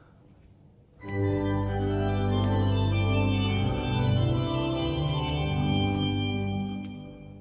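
Pipe organ playing full sustained chords that change a few times. It comes in suddenly about a second in and fades away near the end.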